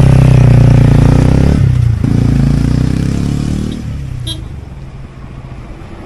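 TVS Ronin's single-cylinder motorcycle engine revving loudly as the bike moves off, with a brief dip about two seconds in; the engine note then fades lower over the last couple of seconds.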